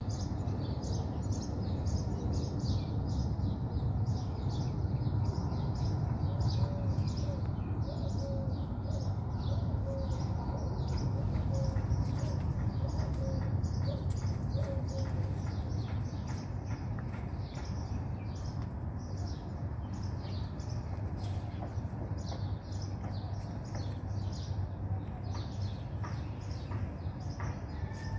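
Small birds chirping steadily, about two to three short high chirps a second, over a low steady outdoor rumble.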